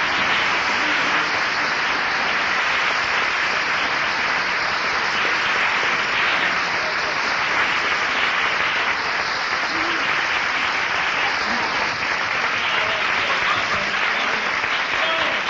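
Audience applauding steadily after a comic song.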